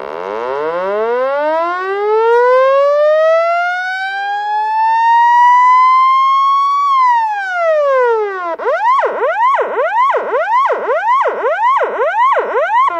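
Electronic police siren. It sounds one long wail that climbs slowly for about seven seconds, then drops, and then switches to a fast yelp warbling about twice a second.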